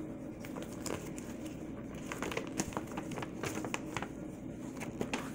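A folded paper collector's sheet being unfolded and handled: soft rustling and crinkling of paper, with many small irregular crackles.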